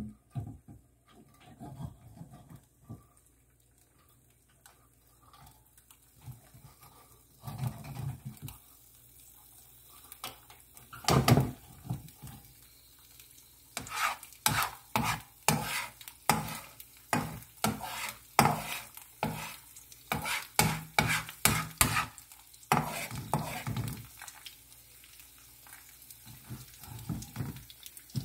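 A slotted spatula scraping and tapping against a nonstick frying pan around a frying egg, in a run of quick strokes at about two a second through the middle, with the pan sizzling faintly underneath.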